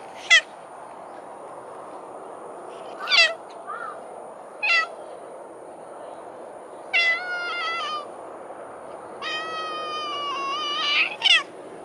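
A cat meowing repeatedly: three short meows, then two long drawn-out meows, and one more short meow near the end.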